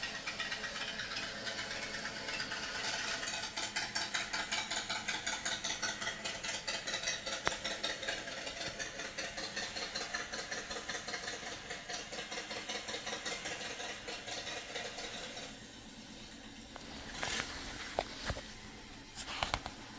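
An engine idling with an even, rapid pulse, which fades out about three quarters of the way through. Near the end, a few clicks and scrapes of book pages being handled.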